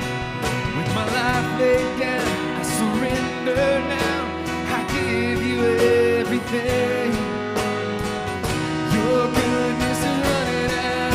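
Live worship band music with guitar, playing steadily through a passage where no lyrics are heard.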